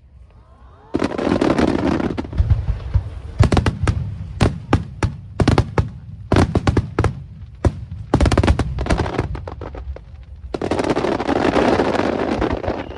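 Aerial fireworks going off: many sharp bangs in quick succession, with two longer spells of dense crackling, one starting about a second in and one near the end, and a short rising whistle just before the first.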